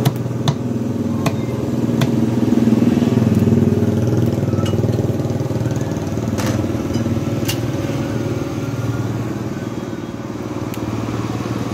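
A steady low motor hum, with a few sharp knocks of a knife on a wooden chopping block in the first two seconds and again around six to seven seconds in.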